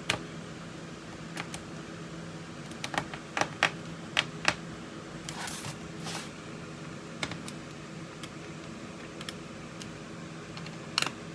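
Scattered sharp clicks and taps of a screwdriver and screws on a laptop's plastic case, with two brief scratchy rasps about five and six seconds in. A fan hums steadily underneath.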